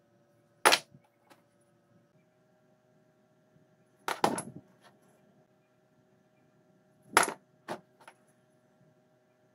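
Steel bars clinking and knocking as they are picked up and set down on a workbench: one sharp clink about a second in, a quick cluster of knocks midway, and three more clinks near the end.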